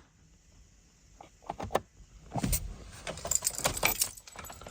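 Quiet at first. About a second and a half in come a few small clicks, then a busy run of jangling and clicking, like car keys rattling on their ring in the ignition as the dashboard controls are worked.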